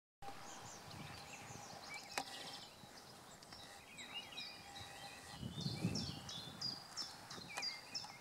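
Songbirds singing many short, falling chirps. Under them are the soft, dull thuds of a horse's hooves trotting on arena sand, loudest a little past halfway.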